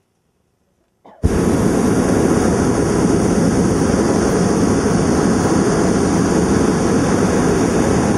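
Hot air balloon's propane burner firing overhead: a loud, steady rushing blast that starts suddenly about a second in and holds without a break.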